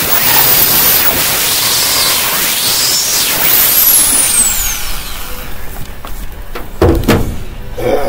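Corded electric drill with a sanding disc grinding cured two-part epoxy filler on a truck door: a rasping noise with a whine that rises and falls, then the drill spins down with a long falling whine about four seconds in. A few knocks follow near the end.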